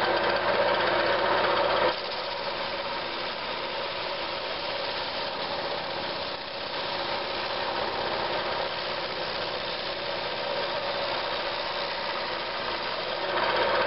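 Shopmade lathe-driven drum sander running steadily, a sandpaper-wrapped drum spinning on the lathe while a segmented wooden ring is fed under it to sand its faces flat and parallel. The sound drops a little about two seconds in and comes back up near the end.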